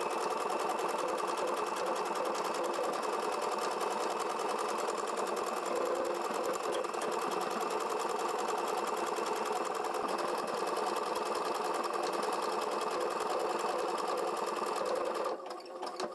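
Brother Innov-is VQ4 computerised sewing machine running steadily on its own as it stitches a cursive embroidered name with the monogramming foot: a steady motor whine with rapid needle strokes. It stops by itself near the end, when the programmed lettering is finished.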